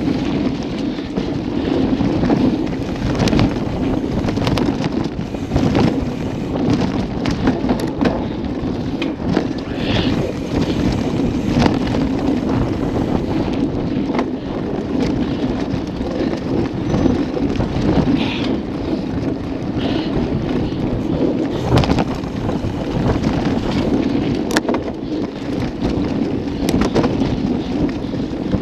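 Wind rushing over an action camera's microphone as a mountain bike rides fast on a dirt singletrack trail, with frequent knocks and rattles as the bike jolts over bumps.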